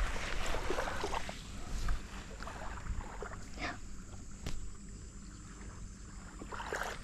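Small waves lapping on the lakeshore, washing louder in the first two seconds, with a few faint clicks.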